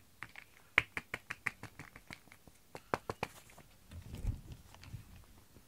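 Quick, irregular clicks of a plastic pet grooming brush as it brushes a cat, several a second, thinning out after about three and a half seconds. A low rumble of handling follows around four seconds in.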